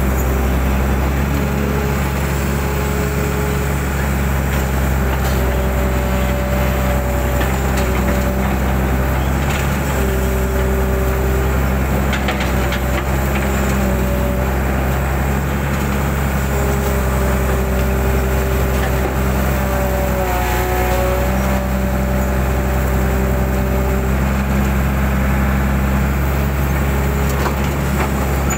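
Mitsubishi 120 excavator's diesel engine running steadily under working load, with a whine that steps up and down in pitch every few seconds as the hydraulics work.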